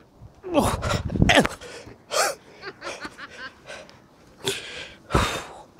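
Several short bursts of a person's voice, not words, the longest about half a second in.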